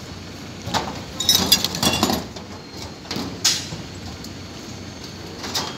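Scattered knocks and clanks on a corrugated metal roof, with a cluster of ringing metallic clinks between about one and two seconds in, over steady background noise.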